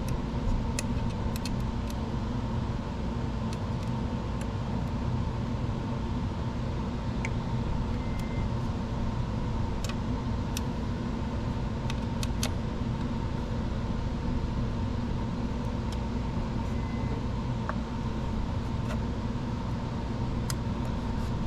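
Steady machine hum with a few light, scattered metallic clicks of a screwdriver and screws as mounting screws on a 3D printer's power supply are tightened down by hand.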